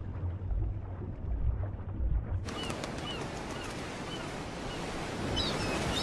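A low, muffled underwater rumble that cuts off suddenly about two and a half seconds in. It gives way to a steady rush of wind with a few short high chirps.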